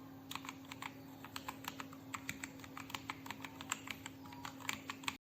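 Typing on a ZIYOU K3 mechanical keyboard with linear red switches: quick, irregular keystroke clicks, about five a second, over a steady low hum.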